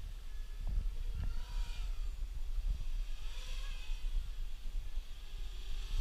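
A small racing quadcopter's electric motors and propellers whining, the sound swelling louder and the pitch bending up and down as the throttle changes, over a steady low rumble.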